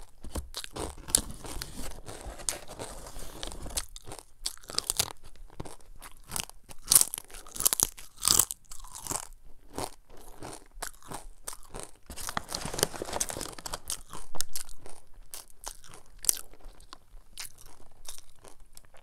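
Cassava chips being chewed close to the microphone: a run of sharp, irregular crunches, with two louder spells of crunching partway through.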